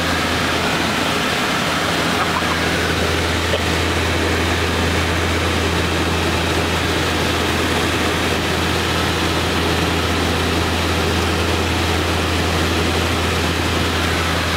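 Cabin noise inside a small passenger aircraft: the engines' steady low drone and hum under a broad rushing hiss, unchanging throughout.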